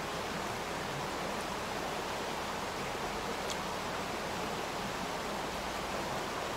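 Fast-flowing river rushing over stones: a steady, unbroken water noise. A single faint click sounds about three and a half seconds in.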